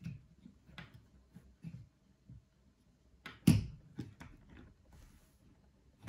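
Small clicks and taps of hands handling the plastic handle of a curling iron while a new power cord's end is seated in its swivel section, with one much louder knock about three and a half seconds in.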